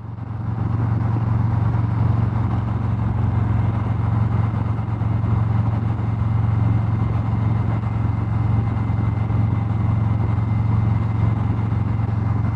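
Harley-Davidson Street Glide Special's V-twin, fitted with Vance & Hines Eliminator 400 slip-on mufflers, running steadily at cruising speed with wind and road noise. It fades in over about the first second and then holds a steady low hum.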